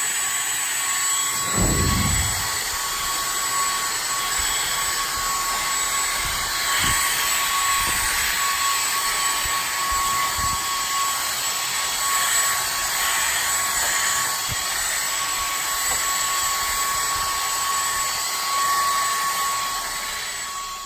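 Vacuum cleaner running steadily with a high-pitched whine as it is drawn over a cat's fur. A few short low bumps and rubs of the nozzle, the loudest about two seconds in.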